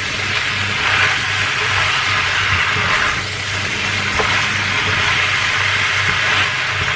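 Duck feet and lotus root sizzling in a stainless steel wok while a spatula stirs them, the hiss swelling with each stroke of the spatula, over a steady low hum.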